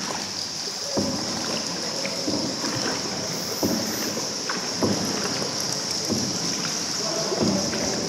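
Paddles dipping and pulling through the water of an underground river, about one stroke every second and a quarter, each splash trailing off in the cave's echo, over a steady high-pitched hiss.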